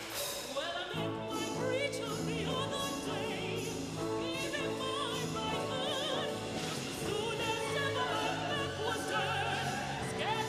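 Symphony orchestra playing sustained chords under a female singer who sings in a classical style with wide vibrato. The orchestra swells in about a second in.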